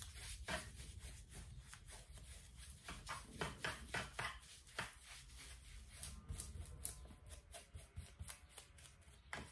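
Faint, scratchy swishes of a large flat paintbrush loaded with acrylic paint, stroked back and forth across a canvas in quick, irregular strokes.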